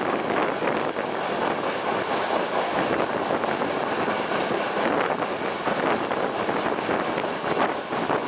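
Regional train running along the line, heard from an open window: a steady rush of wheel and rail noise mixed with wind buffeting the microphone.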